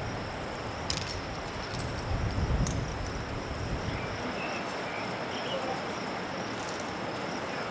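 Outdoor ambience of insects, crickets by the sound, keeping up a steady high buzz. Two sharp clicks come about a second and nearly three seconds in, and a low rumble swells and fades over the first three seconds.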